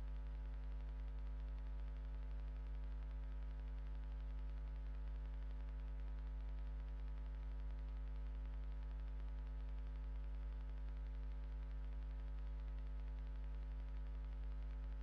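Steady electrical mains hum, a low buzz with a ladder of higher overtones over a faint hiss, with no change and no other sounds.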